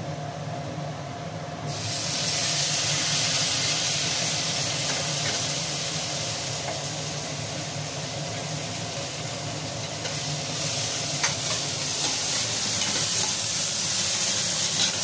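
Chopped tomatoes sizzling as they hit onions frying in hot mustard oil in a stainless-steel pan. The loud hiss starts suddenly about two seconds in and holds steady while a spoon stirs and scrapes the mixture.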